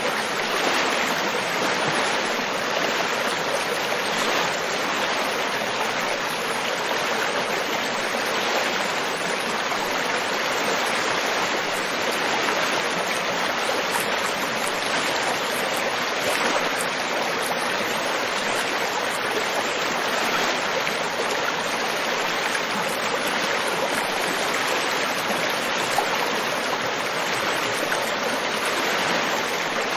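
River water flowing: a steady, even rush of running water with no change in level.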